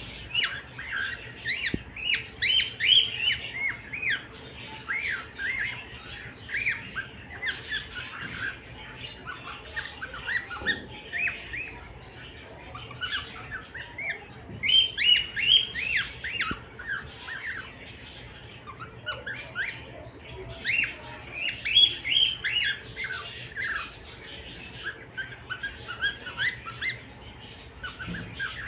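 Cockatiel calling in bursts of short, arched chirps and squawks, several a second, with brief lulls between bursts.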